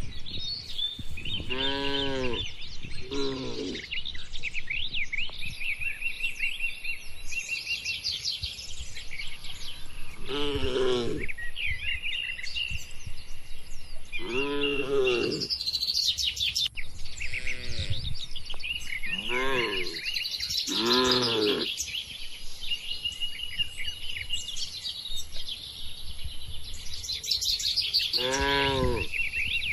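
Cattle calling in short, repeated moos, about eight across the stretch, over birds chirping continuously in the background.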